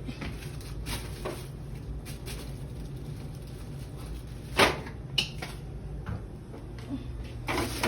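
Kitchen handling noises as garlic goes into the seafood bag: scattered light clicks and a sharp knock about four and a half seconds in, with a smaller one just after, over a steady low hum.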